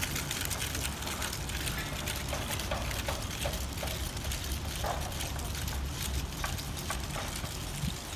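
Steady outdoor noise with a low rumble, typical of wind buffeting a phone microphone, with a few faint soft taps of footsteps.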